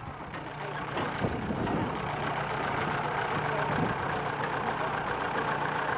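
1914 Rumely 20-60 tractor running steadily at close range, with a couple of short knocks about a second in.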